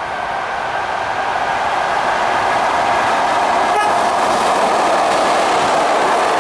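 ЭП2Д electric multiple unit running along the track: wheels rumbling on the rails, growing louder over the first few seconds as it nears, then holding steady, with a single sharp click about midway.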